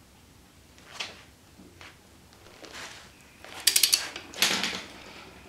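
Ratcheting torque wrench working the crankshaft pulley bolt on a Subaru EJ25 engine: a single click about a second in, then a quick run of ratchet clicks near four seconds, followed by a short metallic clatter.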